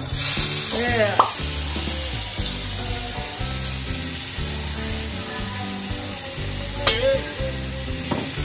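Minced garlic and chilli hitting hot oil in a stainless steel wok, sizzling at once and frying steadily while being stirred with a spatula. A single sharp knock about seven seconds in.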